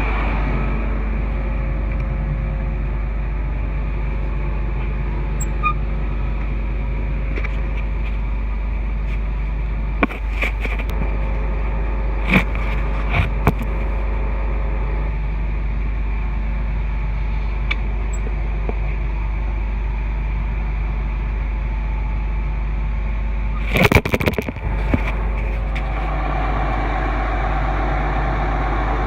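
An engine running steadily at idle, with a few sharp metallic clicks and a short burst of knocks about three-quarters of the way through.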